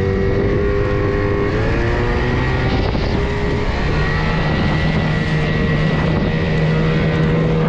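Small outboard motor pushing an inflatable boat along at cruising speed. Its pitch shifts slightly a couple of times, over the rush of water and wind.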